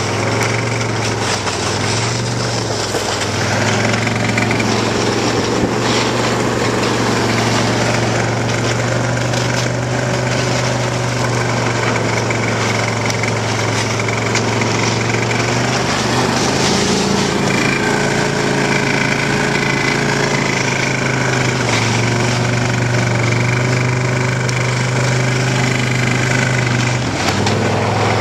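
Ski-Doo Expedition 800 snowmobile's two-stroke engine running steadily while pulling a loaded wood sled, its pitch dipping and recovering briefly a few times.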